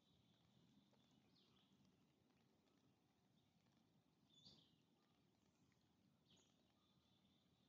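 Near silence: faint background noise with a few faint, short, high chirps about a second and a half, four and a half, and six seconds in.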